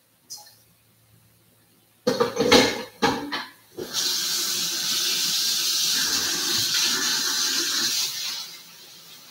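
A few clattering knocks, then water rushing with a steady hiss for about four seconds before it drops away near the end.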